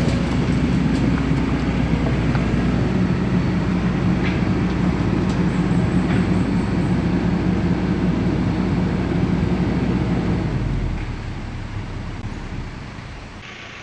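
A vehicle engine running steadily with a low, even hum, fading away over the last few seconds.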